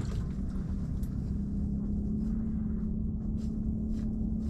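Steady low mechanical hum with a constant droning tone over a low rumble, with a few faint light ticks.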